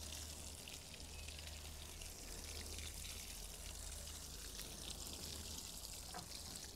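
Water sprinkling from the rose of a 10-litre watering can onto compost and young onion plants, a steady hiss of fine streams over a low steady rumble.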